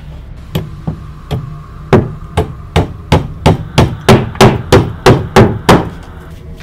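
A run of about fifteen loud, sharp knocks. They start about half a second apart and speed up to about three a second before stopping just before the end.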